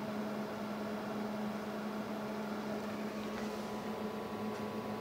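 Steady hum with a constant low tone and faint hiss from running bench test equipment, the cooling fans of the signal generator and oscilloscope.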